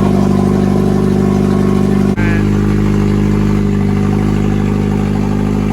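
Car engine idling steadily and loudly with its exhaust front pipe removed, so the exhaust runs open ahead of the rest of the system.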